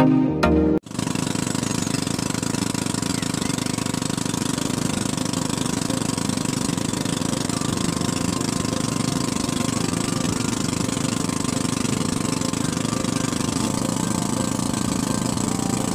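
Small wooden boat's engine running steadily under way, with a fast, even pulse.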